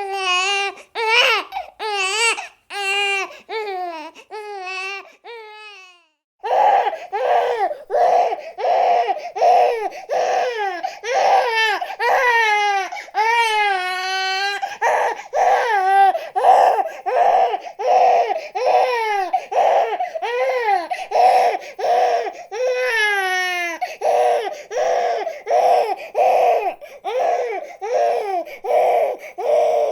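A baby crying in short, wavering wails. After a brief break about six seconds in, a different stretch of crying follows in rapid, rhythmic bursts, a few each second, broken by a few longer falling wails.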